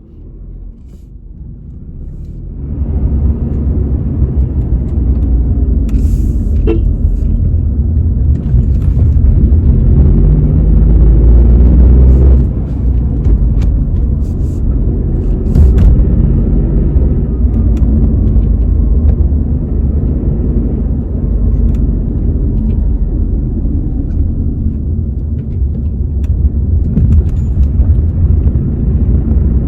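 Inside a Tata Nexon being driven slowly, recorded beside the rear left door: low road and tyre rumble that swells about two and a half seconds in, with scattered knocks and clicks. These are the intermittent 'khat khat' rattle from the rear left door, a loose door or panel that the service centre's tightening has not cured.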